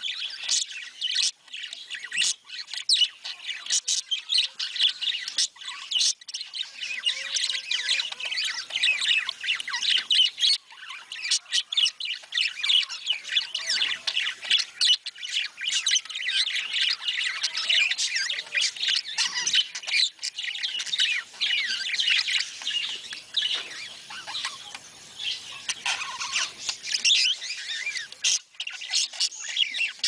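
A flock of budgerigars chattering, with many quick overlapping chirps and squawks.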